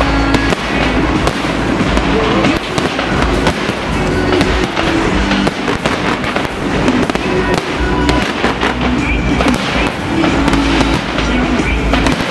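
Fireworks going off in rapid succession, a dense run of bangs and crackles over a low rumble, with music playing underneath.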